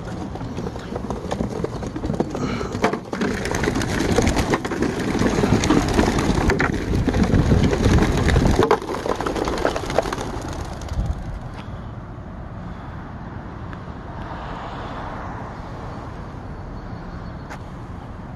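A flock of young racing pigeons released from wooden transport crates: a loud flurry of wing flapping and clatter that stops suddenly about nine seconds in. After that, only steady, quieter background noise remains.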